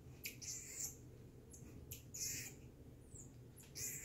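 Marmoset giving short, high-pitched squeaky calls, about four of them spread over a few seconds.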